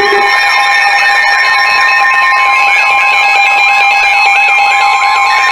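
Emergency alert tones between weather warnings: several steady electronic tones held together, with a quick, repeating warbling chirp running over them, signalling that another warning is about to be read.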